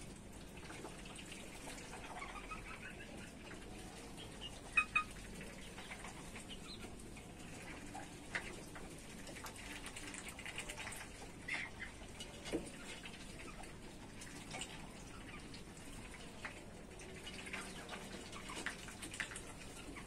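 Faint sounds of ducks and chickens feeding: scattered small pecking and dabbling clicks at a trough and water bowl. There are a few short soft calls, the loudest a sharp double sound about five seconds in.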